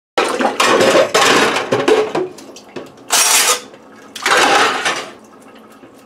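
Dishes, a plastic bowl and a plate, clattering and splashing as they are put into a sink full of water. The sound comes in three loud bursts: a long cluster at first, a short sharp one about three seconds in and another about a second later.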